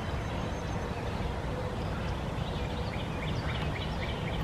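Outdoor background: a steady low rumble and hiss with a few faint bird chirps in the second half.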